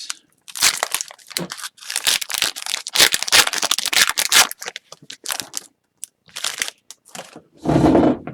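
Upper Deck hockey card pack wrapper crinkling and tearing as it is cut and pulled open, in several bursts, with a dull bump near the end.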